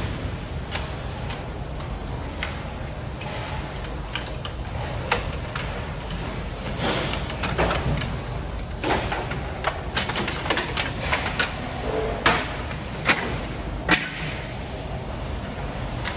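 Irregular clicks, clacks and knocks of hands and tools working the plastic covers and screws of a Konica Minolta bizhub C308 copier during disassembly, over a steady low hum. Three sharper knocks come about three quarters of the way through.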